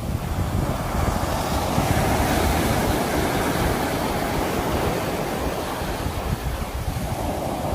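Sea waves breaking and washing on the shore, one swell building about a second in and easing off toward the end, with low wind rumble on the microphone.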